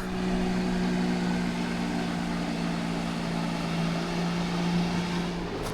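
Car engine running with a steady hum over road noise, as from inside a vehicle on the move. A couple of sharp clicks come near the end.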